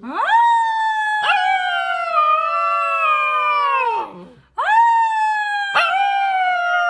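A husky-type puppy howling: two long howls, each rising quickly at the start and held with a brief catch in the voice partway through. The first falls away after about four seconds, and the second begins about half a second later.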